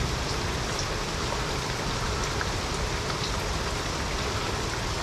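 Steady monsoon rain falling, with a few scattered drops ticking close by.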